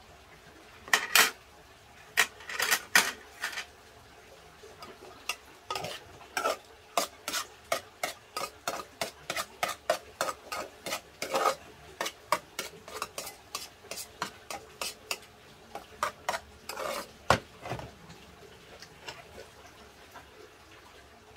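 A spoon scraping and clinking in a pot as rice with lettuce and stir-fried eggplant is mixed. It comes as many short scrapes: a few louder ones near the start, then a busy run of about two to three a second through the middle, thinning out toward the end.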